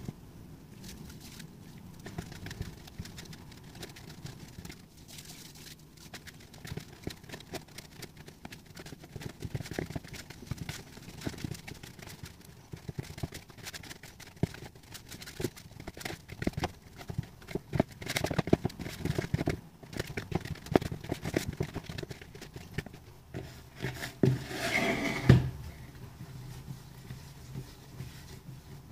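Pizza dough being kneaded by hand in a bowl: irregular soft thumps and knocks of the dough and the bowl against the worktop, busier in the second half. There is a louder clatter a few seconds before the end.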